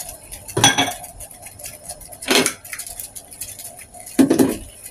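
Three short clatters of kitchen dishes, about two seconds apart, over the faint bubbling of water at a rolling boil in a ceramic casserole dish.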